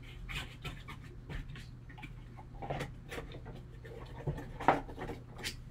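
Gloved hands handling a cardboard card box and its foam insert: scattered rustles, scrapes and light knocks as the lid is put back on. The loudest knock comes about three-quarters of the way through. A low steady hum runs underneath.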